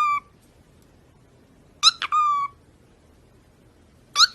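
Meow-like call repeated about every two seconds, each a quick rising chirp and then a longer held note that falls slightly.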